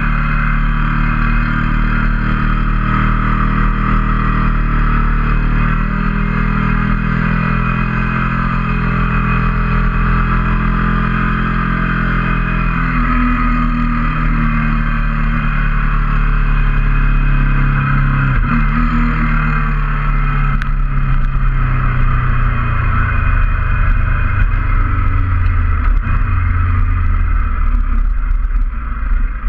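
Motorcycle engine running under way with steady wind rush over the mic. The engine note drops in steps through the second half as the bike slows to a stop.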